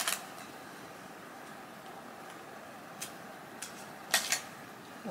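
A few short clicks and rustles of small objects being handled, the loudest cluster a little after four seconds in, over a steady faint hiss.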